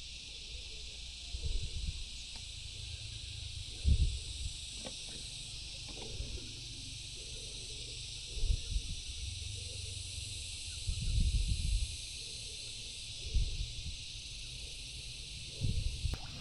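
A steady, high-pitched insect chorus hissing without a break, with short low rumbling thumps every two to three seconds.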